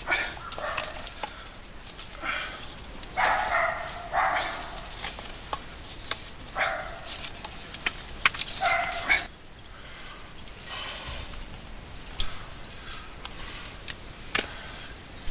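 Dogs whining and yipping in short repeated calls every second or so, mostly in the first nine seconds and fainter after. Scattered sharp clicks come from a hand auger boring into a log.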